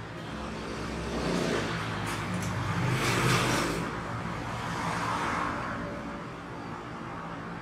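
A vehicle passing by: a rumbling noise that swells to its loudest about three seconds in, then fades away.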